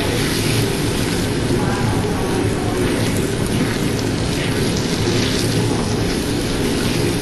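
Chicken liver frying in a hot pan of butter and olive oil with sautéed onion and tomato: a steady, dense sizzle.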